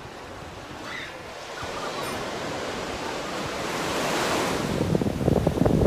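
Ocean surf breaking and washing on a beach, a steady rush that swells over the first few seconds. Near the end, wind buffets the microphone with a low rumble.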